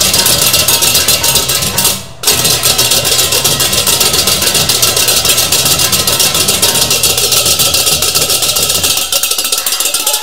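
Balinese baleganjur gamelan playing loud and fast: rapid clashing of ceng-ceng kopyak hand cymbals over drums and gong tones. The whole ensemble stops dead for a moment about two seconds in, then comes straight back in.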